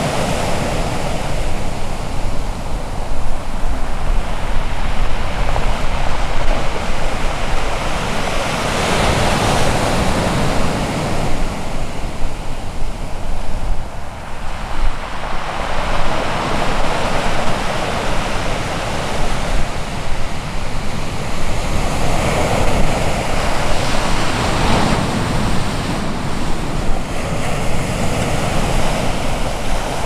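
Pacific Ocean surf breaking on the shore: a continuous rushing wash that swells and eases as waves come in, with a deep rumble underneath.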